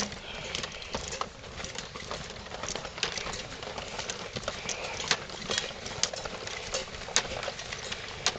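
Footsteps of several people walking on a woodland path, with irregular clicks and rattles of carried gear and the moving camera.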